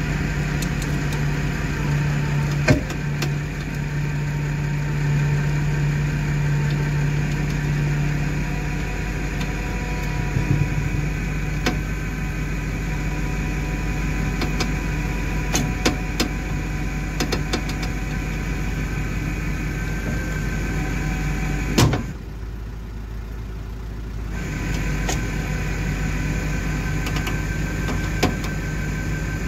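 Diesel truck engines running steadily while a tow truck's winch drags a stuck Isuzu box truck out of the mud over gravel, with scattered clicks and crunches. About 22 seconds in there is a loud clank, and the engine hum drops away for about two seconds before coming back.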